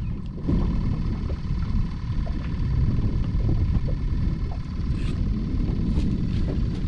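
Wind buffeting the microphone as a steady low rumble, with a few faint light ticks.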